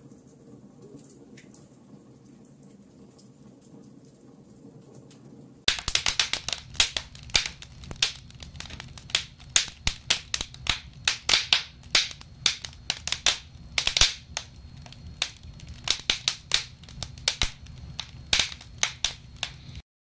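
Wood fire crackling: faint at first, then from about six seconds in, loud crackling with many sharp pops from logs burning in an open cast-iron wood stove. The crackling cuts off abruptly near the end.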